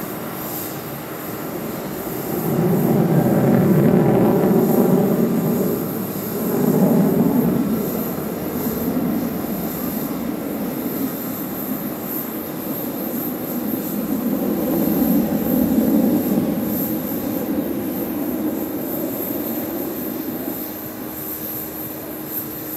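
Sukhoi Su-30MKM's twin AL-31FP turbofan engines roaring as the jet manoeuvres overhead. The rumble swells loudest a few seconds in, briefly again around seven seconds, and once more around sixteen seconds.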